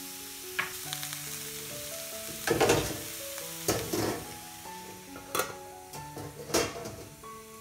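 Shredded cabbage sizzling in a steel frying pan, stirred with a wooden spatula, with several sharp scraping clatters, the loudest about two and a half seconds in. Past the middle, a steel lid is set on the pan with a clank. Soft background music plays throughout.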